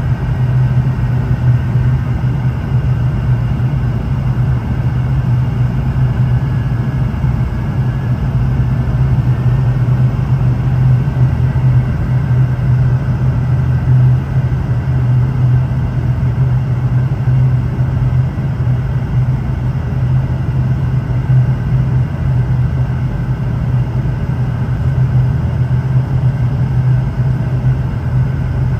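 Steady drone of a Boeing 717-200's two rear-mounted Rolls-Royce BR715 turbofans and airflow, heard inside the cabin: an even, deep hum with a wash of noise that neither rises nor falls.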